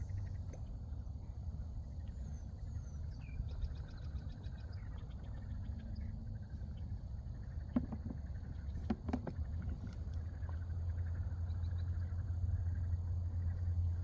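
Evening outdoor ambience: a steady low rumble that grows stronger in the second half, with faint high insect-like chirping and a few brief clicks near the middle.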